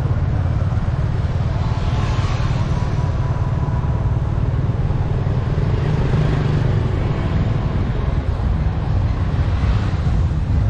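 Steady low rumble of wind, engine and road noise heard from an open vehicle riding along a town street, with a higher hiss swelling a few times as other traffic goes by.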